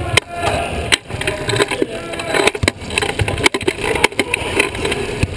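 Sport wheelchair rolling over a hardwood basketball court: a steady low rumble from the wheels, broken by several sharp knocks and clacks.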